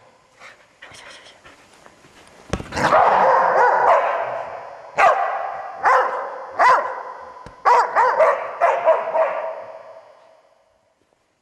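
Australian Shepherd barking, about eight sharp barks spread over several seconds, starting a couple of seconds in and dying away near the end.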